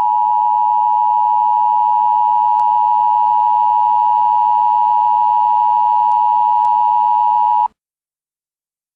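Emergency Alert System attention signal: a loud, steady dual-tone beep held for about eight seconds, then cutting off suddenly.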